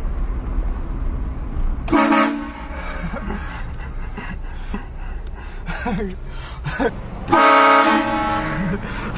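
Vehicle-mounted train horn blasting: a short blast about two seconds in, then a long, loud blast from about seven and a half seconds in that carries on to the end.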